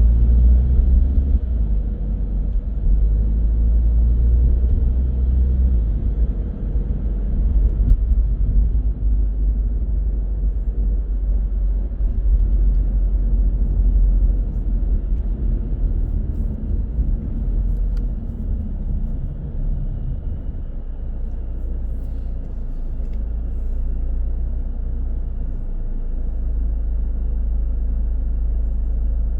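Car driving through city traffic: a steady low rumble of engine and road noise.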